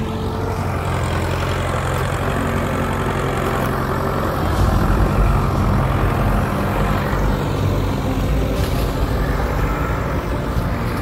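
Farm tractor's diesel engine running steadily as it drives with a loaded front root rake, growing louder about four seconds in as it passes close.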